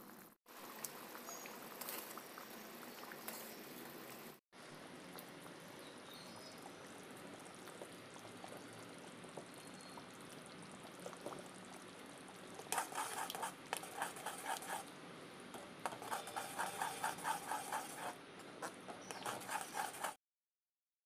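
Tamarind paste simmering in a pan with a steady bubbling hiss. About two-thirds of the way in, a spatula starts stirring the thickening paste in quick rhythmic strokes, about five a second.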